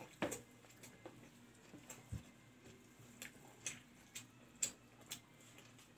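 Faint, scattered clicks and ticks, about one or two a second, of a hand mixing and gathering rice on a steel plate.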